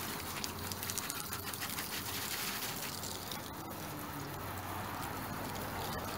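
Garden hose spray nozzle jetting a steady stream of water onto a quad's plastic bodywork, tyre and paving, rinsing off the soap.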